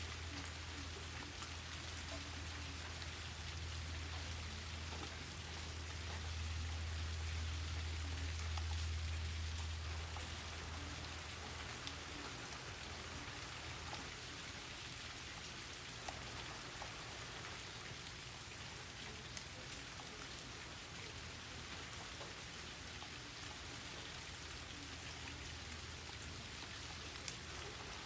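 Steady rain with scattered drops ticking on surfaces. Under it, a low rumble swells, peaks about eight seconds in and fades out about ten seconds in.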